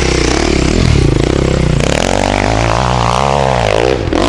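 Enduro dirt bike engine running hard on a hillclimb, its revs swelling up and falling back between about two and four seconds in.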